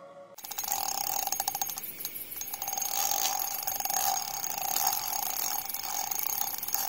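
Fishing reel on a carp rod clicking rapidly and continuously, starting abruptly just under half a second in.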